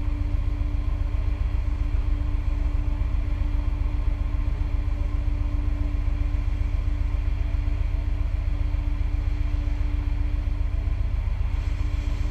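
Ship's machinery running steadily, heard from the deck as a low rumble with a constant hum.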